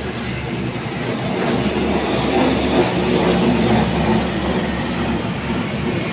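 Steady rumbling background noise with a low hum, growing a little louder about two seconds in.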